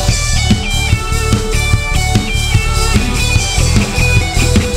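Live worship band playing an instrumental break in a rock style: electric guitars carrying a melody of held notes over bass and a drum kit beat, with no singing.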